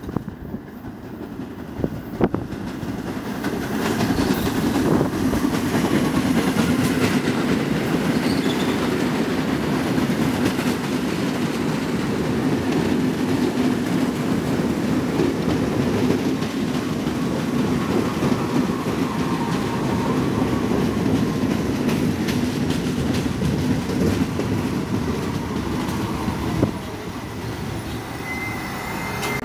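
New York City Subway train running into the station and past close by: a steady rumble of steel wheels on rail with sharp clacks over the rail joints, and a faint whine in the second half as it slows. The noise drops off suddenly near the end as the train comes to a halt at the platform.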